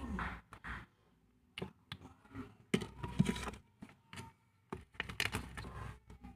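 Irregular rustling, tapping and clicking of paper and stationery being handled at close range, in short bursts with brief pauses between.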